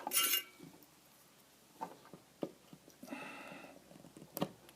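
Quiet bench work while soldering small electronics: a few faint, sharp clicks of tools and parts, with a soft hiss lasting under a second about three seconds in.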